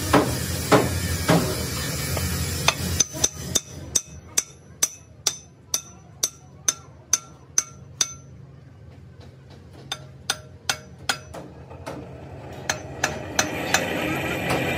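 Hand hammer striking the steel eye end of a hydraulic cylinder sitting on a steel tube: sharp, ringing metal-on-metal blows about two a second, with a pause of a second or so past the middle before the strikes resume.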